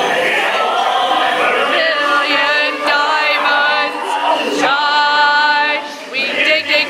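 Recorded group of voices singing together, choir-like, with long held notes near the middle, played as ride show audio.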